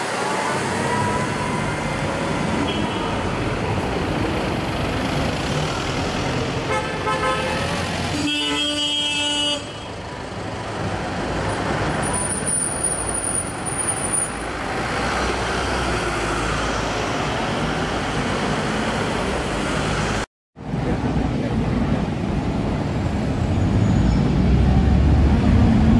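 Lamborghini Aventador SV's V12 engine running as the car pulls away through city traffic, with a car horn sounding for about a second around eight seconds in. After a short break, a car engine hums low and steady, getting louder near the end.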